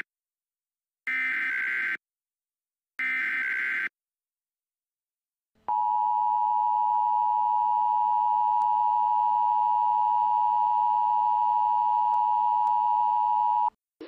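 Emergency Alert System tornado warning tones: the last two of the three SAME header data bursts, each about a second long and a second apart, which encode the alert for receiving stations. After a short gap comes the EAS two-tone attention signal, a steady dual tone held for about eight seconds that cuts off suddenly, announcing that an emergency message follows.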